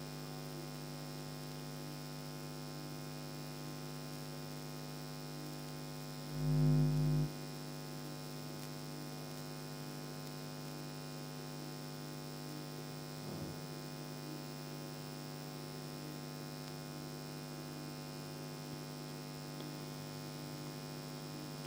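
Steady electrical mains hum, with a brief louder low rumble about six seconds in that lasts about a second.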